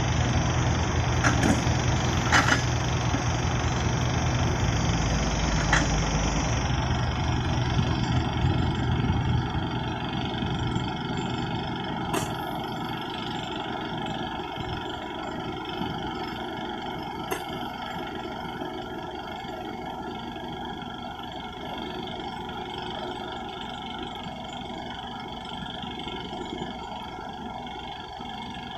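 Heavy diesel engine of a Hitachi EX400 tracked excavator running, loud at first and then fading gradually to a quieter, steady running sound after about eight seconds, with a few sharp knocks along the way.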